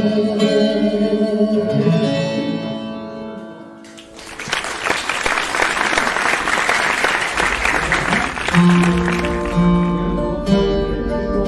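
A woman's singing over acoustic guitar ends a song and fades out. About four seconds in, the audience applauds for roughly three seconds. Then acoustic guitar picking starts the intro of the next song.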